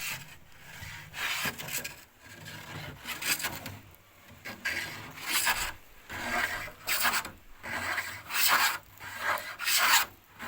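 A hand tool scraping across wood in repeated rough strokes, about one a second, each a short rasping swish.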